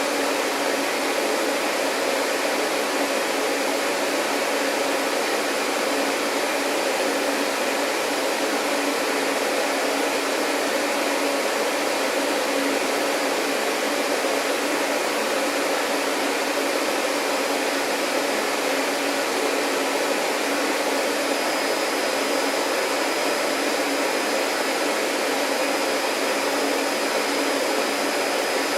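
Vacuum cleaner running steadily: an even whooshing hum with no change in speed. A faint high whine joins it about three-quarters of the way through.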